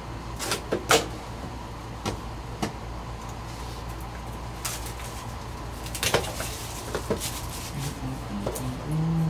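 Plastic shrink wrap crinkling and tearing as it is stripped off a sealed trading-card hobby box, with the box handled and turned in the hands. The sharpest crackles come about half a second to a second in and again around six and seven seconds in, over a steady low hum.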